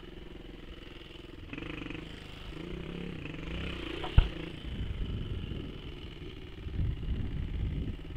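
1982 Honda XL125RC's single-cylinder four-stroke engine running while ridden, its revs rising and dropping, with a single sharp knock about four seconds in. From about halfway, wind buffets the camera microphone over the engine.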